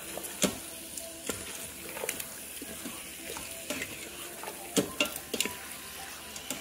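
A metal spoon stirring beef and spices in a stainless steel Instant Pot inner pot on sauté, clinking and scraping against the pot at irregular moments over a steady sizzle.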